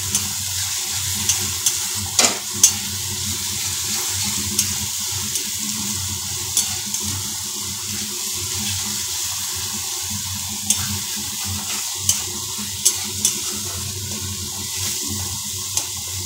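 Melon-seed, poppy-seed and ginger paste sizzling steadily in hot oil in a kadai while a spatula stirs and scrapes it, with scattered sharp clicks of the spatula against the pan. The paste is being fried until its raw smell is gone.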